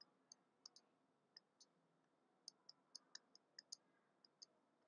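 Faint, irregular clicking of a stylus tip tapping and dragging on a pen tablet while a word is handwritten.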